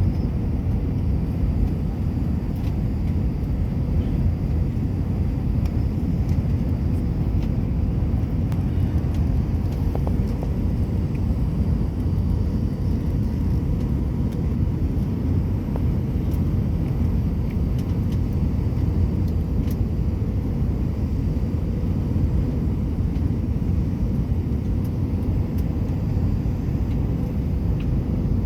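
Airliner cabin noise in flight: a steady low rumble of jet engines and rushing air, with a faint steady hum on top.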